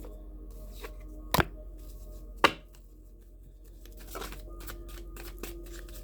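Tarot cards being handled and laid down: light card rustling with two sharp snaps, the first a little over a second in and the second about a second later.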